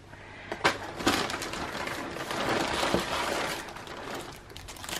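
Plastic packaging crinkling and rustling as hands rummage in a poly mailer bag, a dense crackle of small ticks with a sharper crack about two-thirds of a second in.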